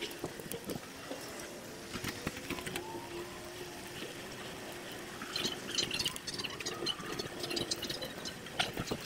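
Bicycle ride noise picked up by a handlebar action cam, sped up about six times: a steady rush of wind and tyre noise with many quick rattles and clicks. Short high chirps come in over the second half.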